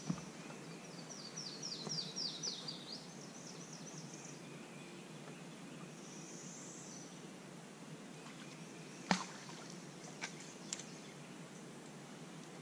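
Quiet swamp ambience with a bird singing a quick run of about ten descending high chirps about a second in. Later, a single sharp knock a little past nine seconds in, followed by a couple of faint ticks.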